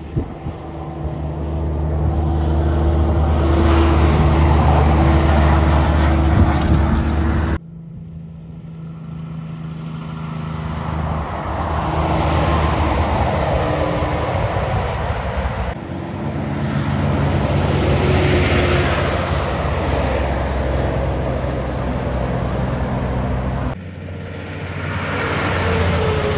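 Heavy fuel tanker trucks driving past one after another in four short recordings cut together, each about eight seconds long: the diesel engine holds a steady low note under tyre and road noise that swells and fades as the truck goes by.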